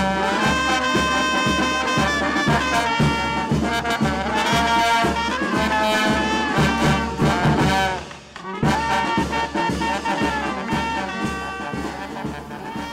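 Brass band of saxophones, trumpets and trombones with snare and bass drum playing a lively tune over a steady bass-drum beat. The music drops out briefly about eight seconds in, then comes back and fades near the end.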